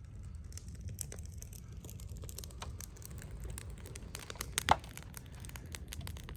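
Crinkling, rustling handling noise with scattered small clicks over a low hum, and one sharp snap about three-quarters of the way through.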